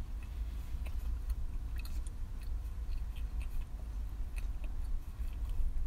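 Close-up mouth sounds of chewing a toasted ham and cheese sandwich with the lips closed: small irregular wet clicks scattered throughout, over a steady low rumble.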